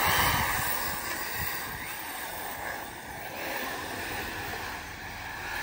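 ARRMA Typhon 6S electric RC buggies launching off the start on a dirt track: brushless motors whining and tyres rushing over the dirt, loudest at the launch and easing as they pull away.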